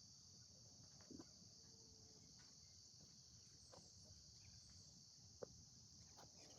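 Near silence with a faint, steady, high-pitched chorus of crickets and a couple of faint soft knocks.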